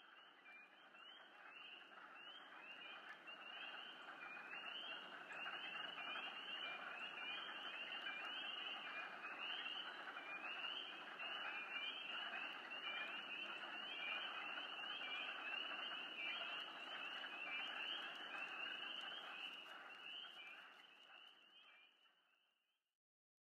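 A faint chorus of small frogs calling: many short, rising high peeps repeating several times a second over a steady hiss of more distant callers. It fades in over the first few seconds and fades out near the end.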